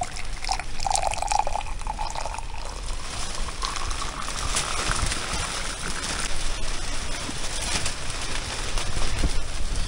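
Tea poured from a glass teapot into a glass mug, the tone of the pour rising steadily as the mug fills.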